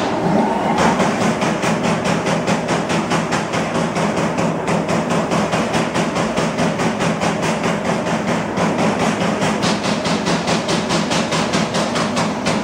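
Trumpf TruMatic 2020R CNC turret punch press punching sheet metal: a fast, even series of sharp strokes, several a second, over a steady machine hum.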